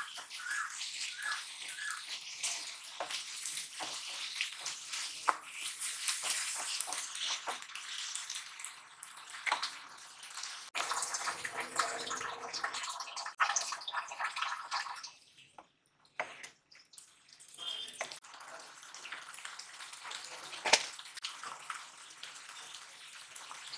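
A prawn and mango masala sizzling in a nonstick frying pan, with the scrapes and knocks of a wooden spatula stirring it. About halfway through, water is poured into the pan from a glass bowl, and the curry then bubbles in the added water.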